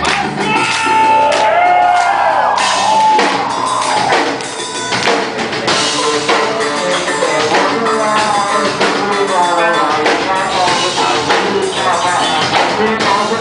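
Rock band playing live: a drum kit drives the song and a voice sings over the band.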